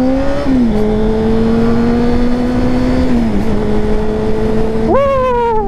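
Sport bike engine pulling in gear, heard from the rider's helmet camera under wind rush. Its pitch climbs, drops at a gear change about half a second in, holds steady, and drops again about three seconds in. Near the end comes a brief yell that sweeps up and then down in pitch.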